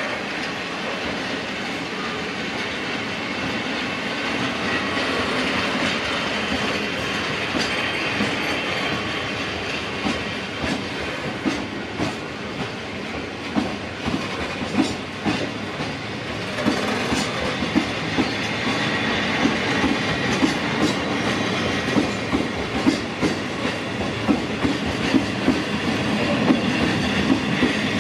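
Sangi Railway train passing over the level crossing with a continuous rumble of wheels on rail. About halfway through, the wheels start clacking over the rail joints in a regular rhythm of roughly two clacks a second.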